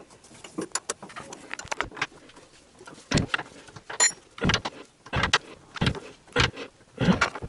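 Ratchet wrench on a socket extension clicking as a bolt under a car is run in, with light scattered clicks at first, then a short burst of clicks on each back-stroke about every two-thirds of a second from about three seconds in. A brief metallic ping sounds near four seconds.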